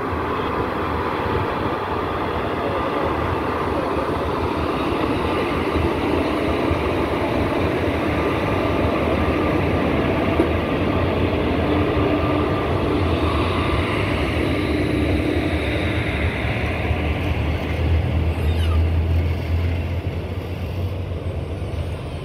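A WAG-5P electric locomotive and then its passenger coaches passing close by, a steady, continuous noise of wheels running on the rails with a faint hum, loudest a little before the end.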